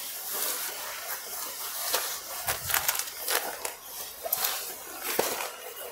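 Jute silk saree fabric rustling and swishing as it is unfolded and handled by hand, with crisp crinkly spikes from the stiff zari weave. A soft thump comes about halfway through and a sharp click near the end.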